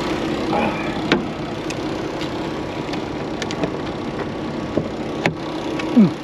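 Semi truck's diesel engine idling steadily, with a few sharp clicks and knocks as snow is knocked off the cab. Near the end there is a short falling squeak, the loudest sound, as the cab door swings open.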